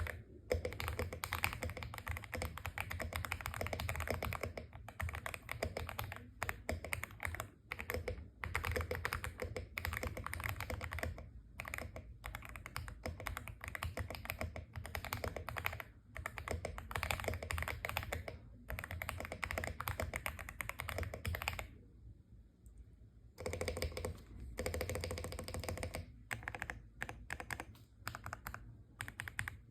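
Stock Aula F75 mechanical keyboard with Ice Vein switches being typed on in fast runs of keystrokes, broken by short pauses and one longer break of about a second and a half about two thirds of the way through.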